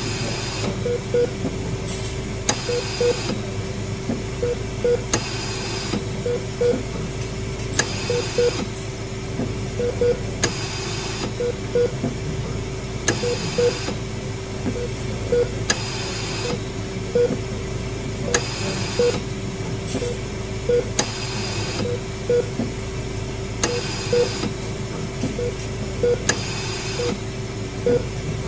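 Hospital bedside equipment: a steady hum under short double beeps about every two seconds, with a soft half-second whoosh of a machine every two to three seconds, as a patient monitor and a pumping machine run during treatment.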